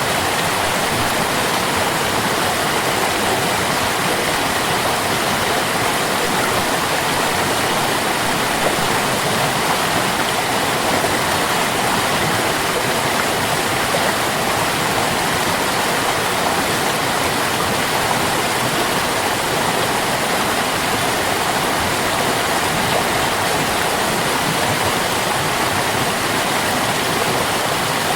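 Water stream flowing: a steady, unbroken rush of running water with no pauses or changes.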